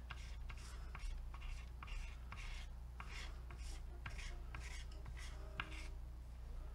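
A paintbrush scrubbing and dabbing paint on a stretched canvas, working white and grey together into a lighter grey. The strokes are faint, brushy and rhythmic, about three a second.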